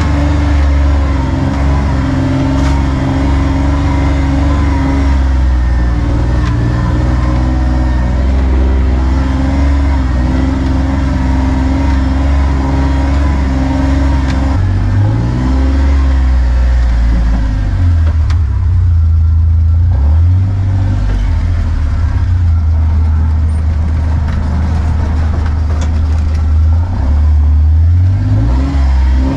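Kawasaki Mule Pro FXR side-by-side's three-cylinder engine running as it drives along a rough trail. The engine speed rises and falls several times, with a climb a little past the middle and another near the end.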